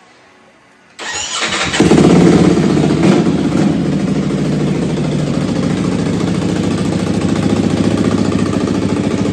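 Ducati Panigale V4 S's 1103 cc V4 engine, fitted with an Akrapovic full-system exhaust, cranked on the starter about a second in. It catches with a loud flare of revs and then settles into a steady, pulsing idle.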